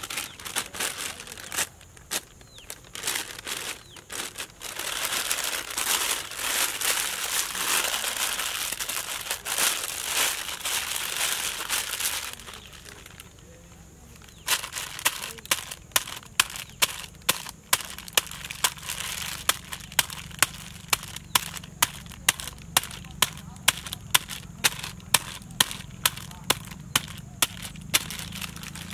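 Plastic bag crinkling and rustling as it is handled. Then, after a short pause, a hand-held stone strikes the wrapped bag on a rock again and again, about two blows a second, pounding the ingredients inside.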